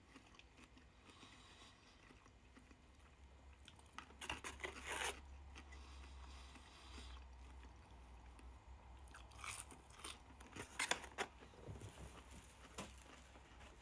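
Quiet chewing of breaded mozzarella sticks, with a few short crackling, crunchy bursts about four seconds in and a few more near the end, over a low steady hum.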